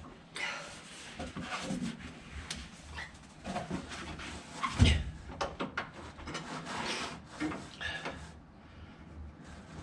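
Handling noises of hands and tools at work: rustling, clicks and knocks, with one louder knock about five seconds in.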